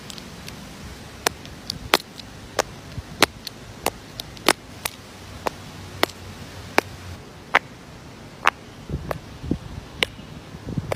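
Silicone simple dimple keychain fidget toys being pressed, their bubbles popping in sharp clicks at an uneven pace of more than one a second, with a few duller thuds near the end, over a faint steady hiss.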